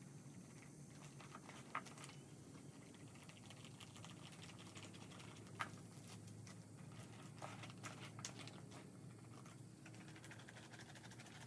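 Faint, scattered clicks and light scrapes of a mixing stick stirring epoxy thickened with Cab-O-Sil in a cup, with a few sharper ticks, over a low steady hum.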